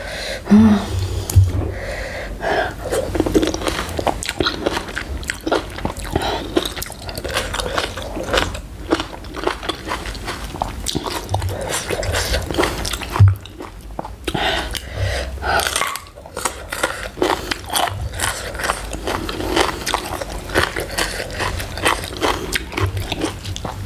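A person chewing and crunching mouthfuls of spicy green papaya salad (som tam) with raw vegetables, in a dense run of short, quick crunches and mouth clicks.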